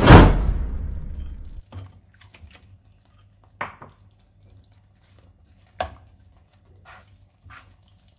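A loud rushing burst right at the start that fades away over about a second and a half, then scattered light knocks and scrapes of a spoon against a pan as paneer cubes are added to a thick masala gravy and stirred.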